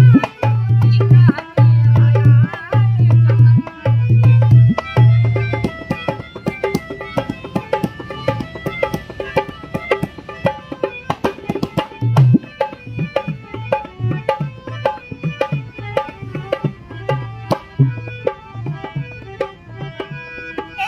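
Harmonium and dholak playing an instrumental folk passage. The harmonium holds sustained reed notes and chords over a steady hand-drum rhythm. The drum's deep bass strokes are heavy for the first five seconds or so, fall away, and come back about twelve seconds in.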